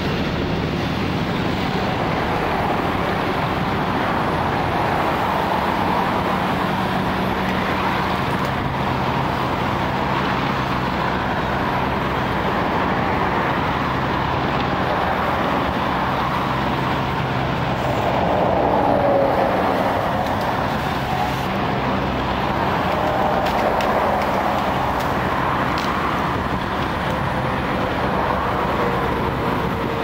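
Heavy crane truck's engine running steadily, powering the crane's hydraulics, over road traffic noise. The sound swells a little about two-thirds of the way through, with a falling whine.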